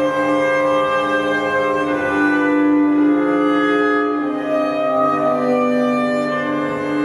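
Cello played with the bow in long held notes, several pitches sounding together over a steady low tone; the notes shift about two seconds in and again a little past four seconds.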